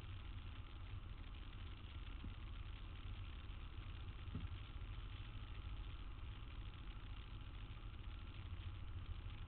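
Steady low rumble of city street traffic, with no distinct events.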